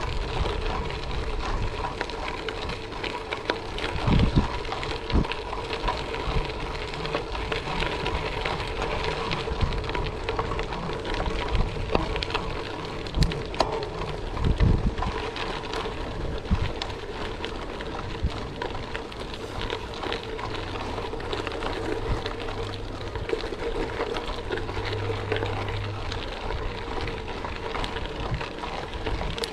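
Gravel bike tyres rolling over a gravel road: a steady crackling hiss with a faint hum underneath, and occasional low thumps from bumps or wind on the microphone.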